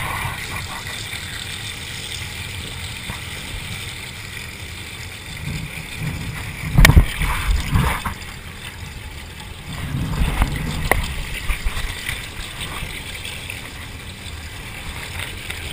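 Steady rush of water from a garden hose, broken by knocks and thumps of cameras being bumped, loudest about seven seconds in and again around ten to eleven seconds.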